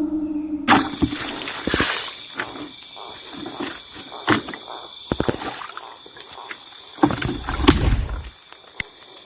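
Music cuts off under a second in, leaving a steady, high-pitched trilling chorus of night insects, crickets among them. Scattered knocks and rustles sound close by, with a brief low rumble near the end.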